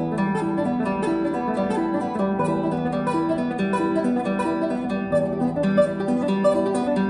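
Classical guitar played solo with the fingers: a quick, continuous run of plucked notes over held bass notes.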